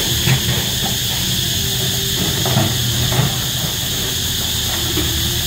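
Cicadas buzzing loudly and steadily over the rumble of a Komatsu excavator's diesel engine running, with a few short knocks.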